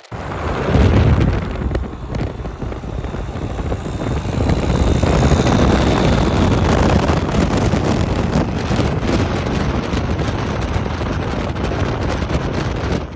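Heavy wind rush buffeting the microphone from a moving car, with engine and road noise underneath.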